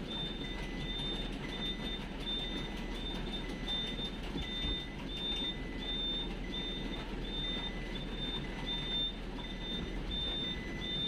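A vehicle's reversing alarm beeps steadily, about three beeps every two seconds, over the low rumble of the van's engine as it backs up.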